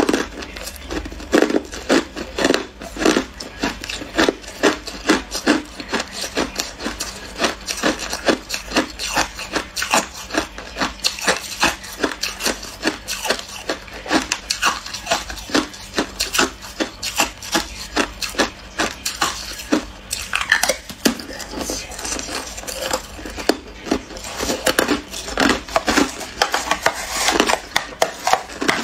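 Close-miked crunching of hard clear ice being bitten and chewed, a continuous run of sharp cracks and crunches, several a second.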